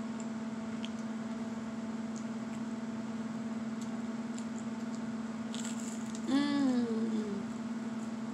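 A person chewing crunchy toast spread with butter and sugar, with faint crisp crunches now and then and a louder crunch about five and a half seconds in. This is followed by a short hummed "mmm" that falls in pitch over about a second. A steady low hum runs underneath.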